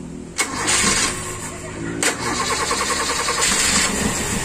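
Toyota Kijang Super's carburetted four-cylinder engine being cranked on the starter, with a sharp click about half a second in and another about two seconds in, after which it runs steadily. It is being started to test whether tightening the loose manifold bolts has sealed a manifold leak that causes a misfire and an unstable idle.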